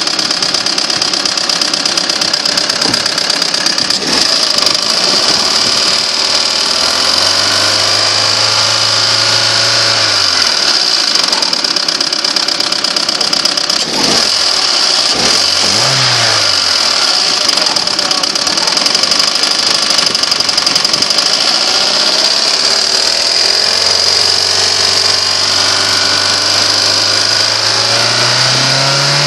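Opel 1.6 Twinport Z16XEP four-cylinder petrol engine running, with a rapid, steady knock from around the intake manifold that the owner suspects comes from the swirl flaps or the EGR valve. The revs are raised and held for a few seconds about seven seconds in, blipped briefly past the middle, and raised again near the end.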